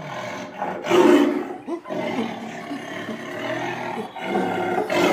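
Tiger roaring: rough, pitched roars with the loudest one about a second in and another near the end.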